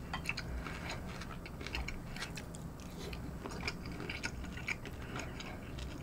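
Close-miked chewing of a mouthful of fried food with the lips closed: soft, irregular wet mouth clicks, several a second.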